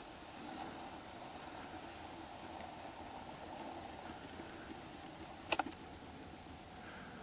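Faint, steady background hiss with a thin high whine, broken by two sharp clicks in quick succession a little past five seconds in.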